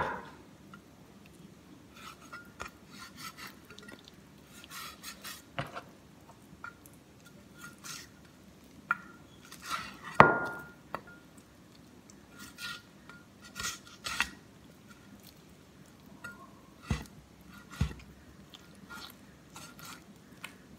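Meat cleaver scraping and tapping against raw chicken and bone as the meat is cut away from the bone. About ten seconds in comes a sharper metallic knock that rings briefly, and near the end two duller knocks.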